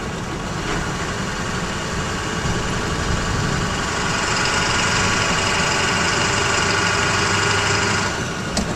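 Ford F-350's 7.3-litre Powerstroke V8 turbo-diesel pulling in gear, heard from inside the cab, growing louder over several seconds. About eight seconds in the engine note drops back for a gear change, with a short click.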